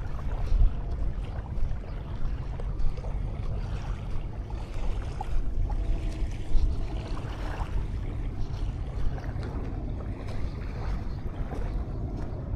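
Wind on an action camera's microphone, a steady low rumble, over the wash of waves on a sandy beach.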